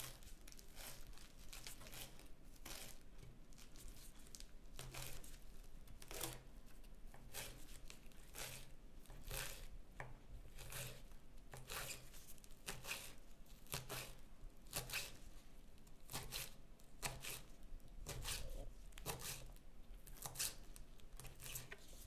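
Kitchen knife chopping fresh parsley on a wooden cutting board: short cutting strokes through the leaves onto the board, roughly one or two a second, unevenly spaced.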